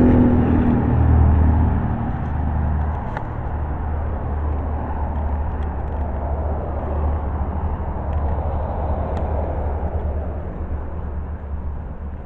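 Pickup's V8 engine idling steadily, a little louder for the first two seconds, with a few faint clicks.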